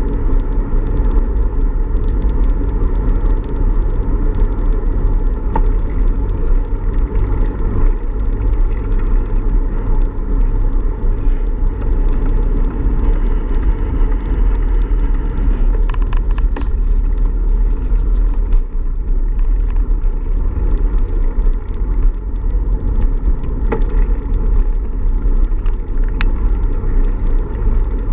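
Wind buffeting the microphone of a camera on a moving bicycle: a loud, steady low rumble, with a few faint clicks about halfway through and near the end.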